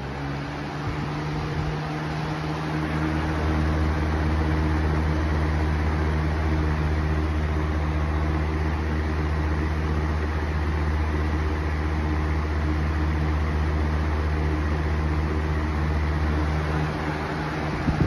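Lasko Cool Colors box fan switched to high, spinning up over the first few seconds and then running steadily: a low motor hum with a whoosh of air. It is running a balance test and shakes only a little. A brief bump comes near the end.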